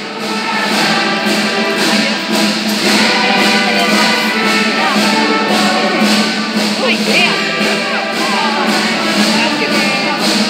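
Portuguese marcha popular music for São João, voices singing the march over a steady beat; it swells louder about half a second in.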